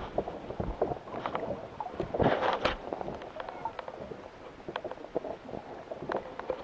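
Scattered knocks, clicks and rattles of handling on a small fishing boat, with a short rushing burst about two seconds in.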